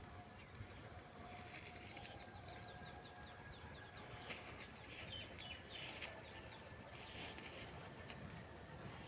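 Sheep cropping grass, with a few short crisp rips of grass being torn. Faint bird chirps come in a quick series about two to three seconds in.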